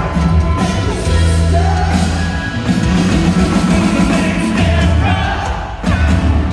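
Live band playing a slow funk song with a singer, heard through the concert's sound system.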